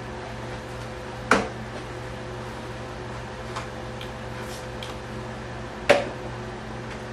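Two sharp clicks, about four and a half seconds apart, of small hard objects handled on a workbench, with a few faint ticks between, over a steady electrical hum.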